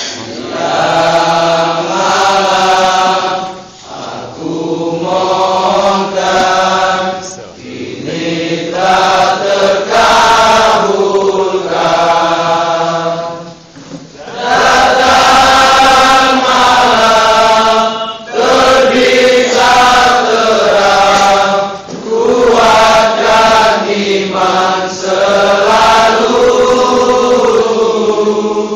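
A large group of young people singing a farewell song together in unison. They sing in phrases a few seconds long, with short breaks for breath between them.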